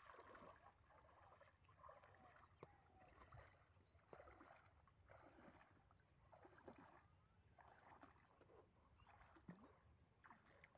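Near silence, with faint scattered splashes, rustles and small clicks of shallow water and small fish being handled on a bamboo-slat fish trap.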